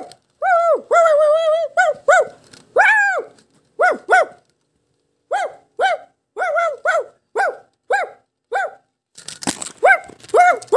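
Plush toy dog barking: a few drawn-out, wavering yelps, then a steady run of short, high yaps about two a second, with a brief rustle of handling near the end.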